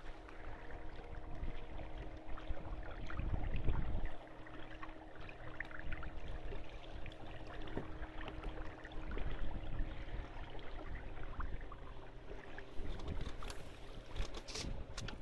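Water rushing and gurgling along the hull of a sailboat under spinnaker, with gusts of wind buffeting the microphone, strongest a few seconds in.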